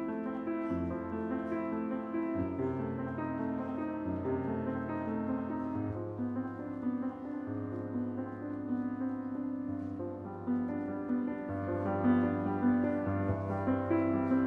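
Grand piano played solo: slow, sustained chords over held bass notes that change every second or two, growing louder near the end.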